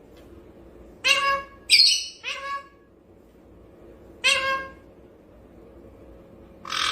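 Pet parrot mimicking a cat: a run of about five short meow-like calls, one higher and shriller than the rest about two seconds in.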